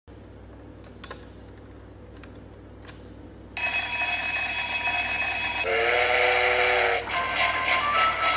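A coin clicks onto a toy train coin bank. About three and a half seconds in, the bank's electronic sound effects start: a steady ringing, then a train-whistle toot, then a short electronic tune as the toy train sets off.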